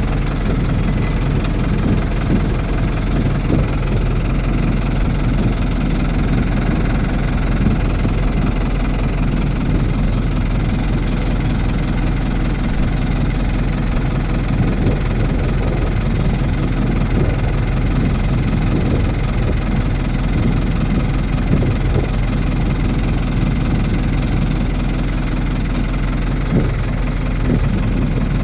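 Fiat 70-66 tractor's diesel engine running steadily under load while pulling a mower, heard from inside the cab.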